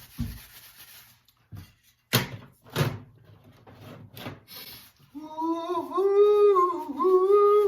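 A few hard knocks and thuds, then, for the last two and a half seconds, a man humming a wavering tune, which is the loudest sound.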